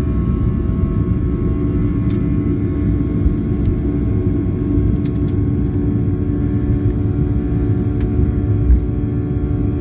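Boeing 737-700's CFM56 jet engines at takeoff power, heard from inside the cabin: a loud, steady rumble with several steady engine tones over it and a few faint clicks and rattles.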